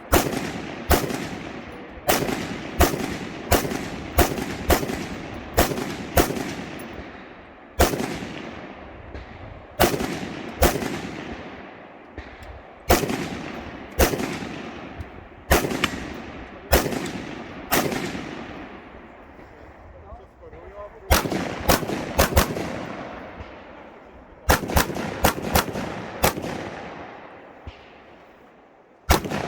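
Rifle fired in irregular strings during an IPSC practical shooting stage: about thirty sharp shots, each with a long echoing tail. Most are half a second to a second apart, with quick doubles and triples near the middle and end, and short pauses between strings.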